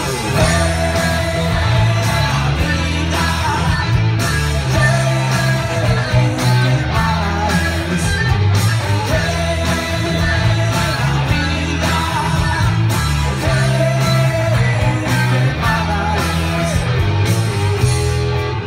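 Rock band playing live through a PA: a prominent electric bass line stepping between notes under drums and electric guitar.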